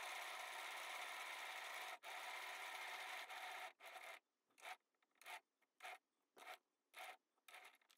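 A faint scratchy rubbing noise, steady at first, that breaks up about four seconds in into short strokes coming roughly every half-second.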